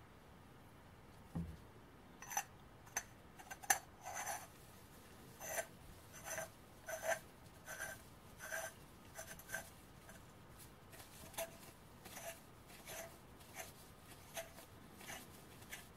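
Two steel parts of a mortar screwed together by hand: metal threads scraping and squeaking in short strokes, roughly one every half second, with a soft knock as the parts are picked up about a second in.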